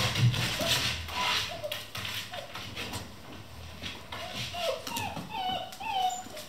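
Vizsla puppies playing: scuffling and claw clicks on the floor and plywood walls, with short high whines and yelps, several in quick succession near the end.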